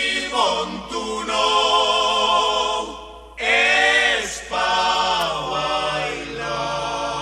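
Choral voices singing held, swelling chords in several phrases with brief breaks and no beat: an a cappella vocal ident.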